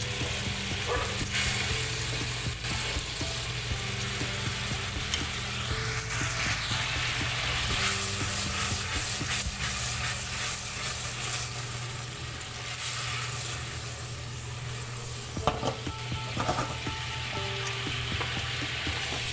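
Marinated chicken pieces sizzling and bubbling in their spiced cooking liquid in a nonstick wok over a high flame as the water cooks off, while the pieces are stirred. A few knocks against the pan come near the end, over a steady low hum.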